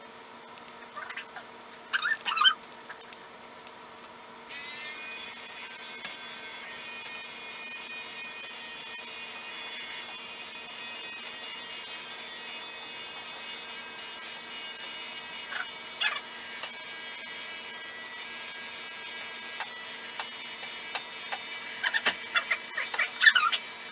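Electric pet-grooming clippers switched on about four and a half seconds in and running with a steady motor hum. Short rattles break in a few times, loudest near the end.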